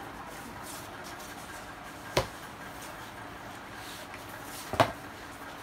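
Wheeled plastic shopping basket being handled and pulled, giving two sharp plastic clacks about two and a half seconds apart, the second louder, over a steady low background hum.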